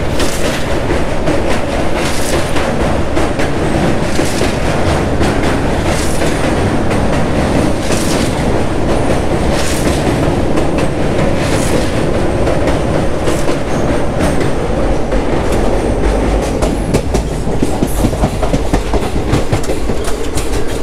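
Jabalpur–Coimbatore Superfast Special passenger train running at speed, heard from aboard: a steady rumble and rush of wheels on rails, with a sharper clack about every two seconds as the wheels cross rail joints.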